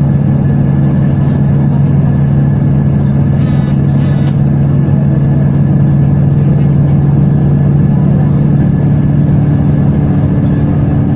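Loud, steady low engine drone with a constant hum, broken by two brief bursts of hiss about three and a half and four seconds in.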